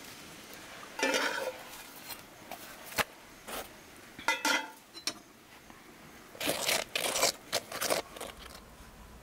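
Metal kitchen utensils scraping and clinking against a plate and flatbreads: a metal spatula stacking qutab flatbreads, then a fork spreading butter over them. Short scrapes come in clusters about a second in, midway, and most busily near the end, with one sharp click.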